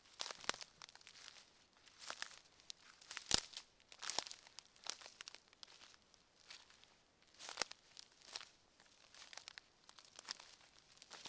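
Footsteps walking on a forest floor, each step a crunching, crackling cluster, roughly one step a second, with a sharper crack about three seconds in.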